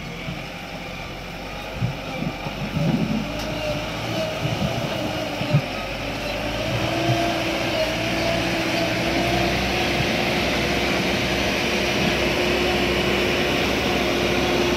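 JCB backhoe loader's diesel engine running steadily. About six seconds in it speeds up and holds a higher, louder steady note.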